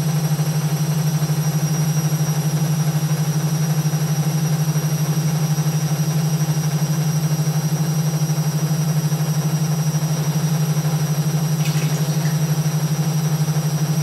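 Synix 7kg front-loading washing machine on its final spin: a loud, steady hum from the spinning drum and motor, with a steady high whine above it.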